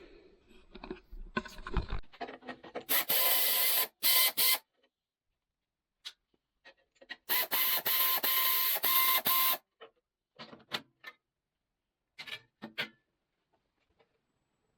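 A small electric power tool runs in two bursts of a couple of seconds each, a motor whine under a harsh buzz, with light clicks and knocks of tools and parts in between.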